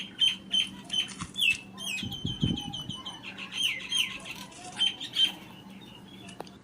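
A bird peeping: a quick series of short, high chirps, several sliding downward in pitch, with a brief low thump about two and a half seconds in.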